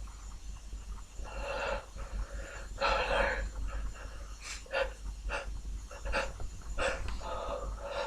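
A man sniffling through his nose: two longer breaths about a second and a half apart, then several short, sharp sniffs.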